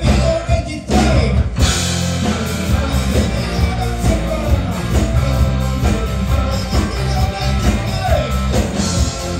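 Live band playing a disco-style rock song on electric guitar, electric bass and drum kit, with the full band coming in about a second and a half in.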